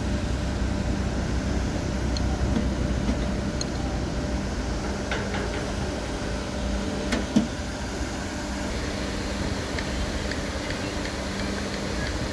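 Heavy diesel earthmoving machinery running steadily with a low, even hum. A single sharp knock sounds about seven seconds in.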